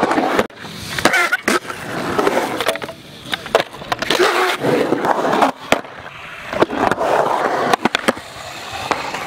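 Skateboard wheels rolling on concrete, broken by sharp clacks and knocks of the board landing and the trucks hitting and scraping along a metal rail and the coping, many times over.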